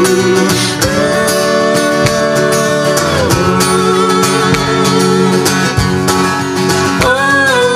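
Acoustic guitar and ukulele playing together, with a melody line of long held notes that bend and glide in pitch over the strings.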